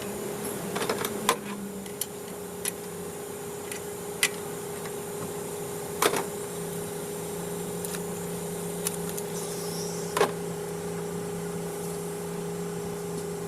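Scattered clicks and knocks of metal tools and parts being handled during engine work, about seven sharp ones, over a steady background hum.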